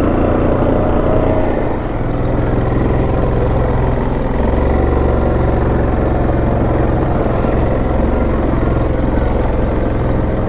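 A 2017 Yamaha Grizzly 700 ATV's single-cylinder engine runs steadily under way over a rough trail, its pitch shifting a little in the first couple of seconds.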